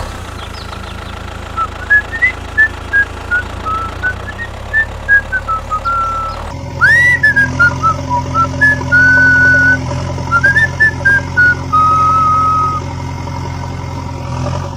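A whistled tune of short rising and falling notes over a steady engine hum. The hum changes to a deeper, louder note about six and a half seconds in.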